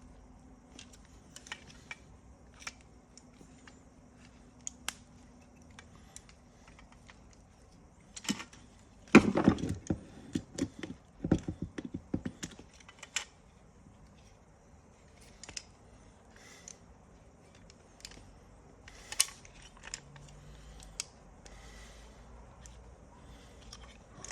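Small plastic and metal parts of a seatbelt retractor being handled and fitted: scattered light clicks and taps, with a burst of louder clicking and rattling clatter around the middle.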